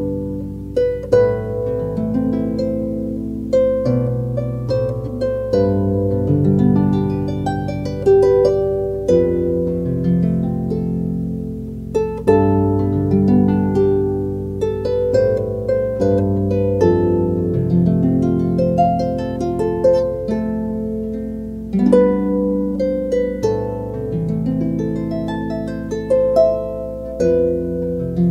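Harp music: plucked notes with sharp attacks ringing out over lower bass notes that sustain underneath.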